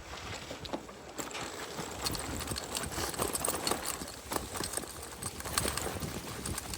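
A bicycle rolling over a rough surface: a dense, irregular patter of clicks and knocks from the tyres and bike, picking up about a second in.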